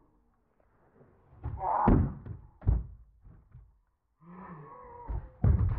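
Cardboard boxes landing and knocking against each other with dull thunks, loudest about two seconds in and near the end. A voice calls out wordlessly between the thuds.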